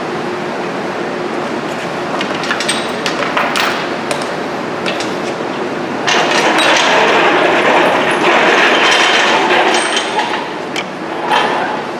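Metal clinks and knocks of engine-removal work on a steady shop noise, with a louder rushing noise for about four seconds midway.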